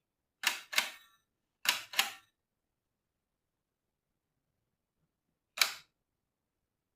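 Shutter of a Kodak Six-20 Brownie E metal box camera clicking as its button is pressed: two quick double clicks, then a single click a few seconds later.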